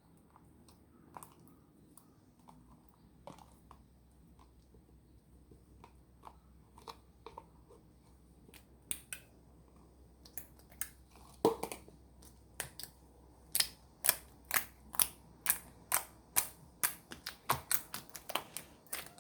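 Slime being squeezed and pressed by hand, giving crisp clicking pops, scattered at first and then coming quickly, about two to three a second, from about halfway in.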